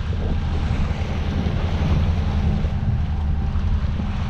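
Steady wind noise on the microphone over the rush of sea water along the hull of a sailing yacht under sail.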